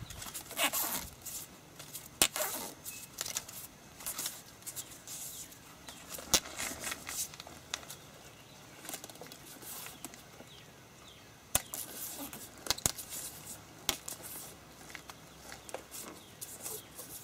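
Rustling and crinkling of plastic grafting tape being pulled and wrapped tightly around a mango graft, with scattered sharp clicks and taps as it is handled.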